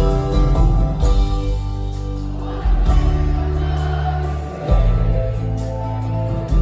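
Live band playing a soft rock ballad, with held chords over sustained bass notes and singing. The bass changes note twice.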